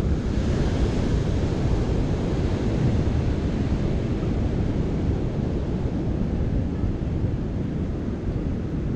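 Wind rushing over the microphone with ocean surf beneath, a steady noise without a break.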